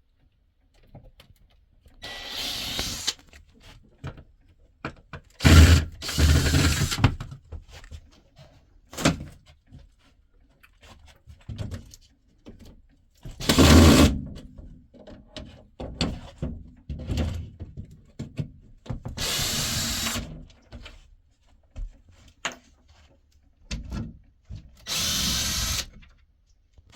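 Power drill run in about five short bursts of a second or so, with knocks and clatter between them, as screws are driven out of a camper's bed frame.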